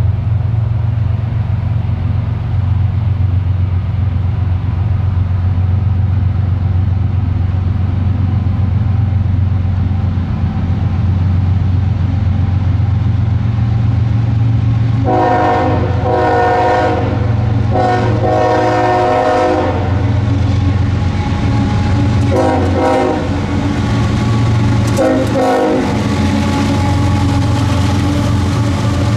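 Freight train led by GE diesel locomotives approaching with a steady low engine drone. About halfway through, the Nathan K5HL five-chime air horn sounds two long blasts and then two short ones. Near the end the locomotives pass close by with rail and wheel noise.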